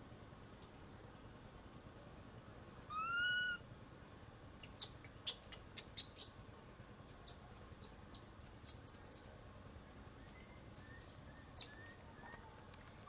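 An infant macaque gives a single short coo that rises and falls, about three seconds in. This is followed by a quick series of sharp clicks and short high chirps.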